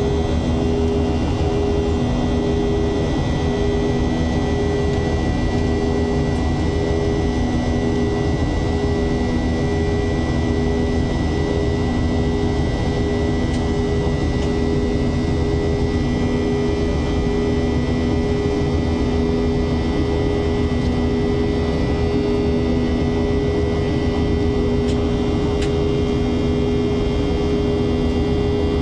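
Boeing 737-800's CFM56 jet engines giving a steady drone, with a constant low hum and a thin high whine, unchanging in level.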